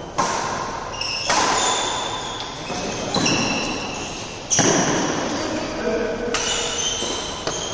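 Badminton doubles rally: rackets striking the shuttlecock about five times, one to two seconds apart, each hit echoing through the large hall.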